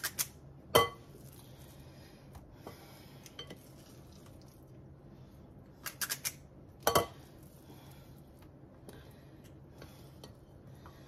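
A metal scoop clinking against a glass mixing bowl while scooping meatball mixture. There are a few sharp clicks near the start, the loudest just under a second in, and another cluster of clicks about six to seven seconds in, with quiet between.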